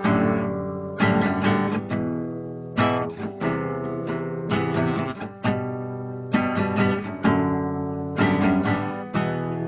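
Acoustic guitar strumming chords in a steady rhythm, each strum ringing out and fading before the next.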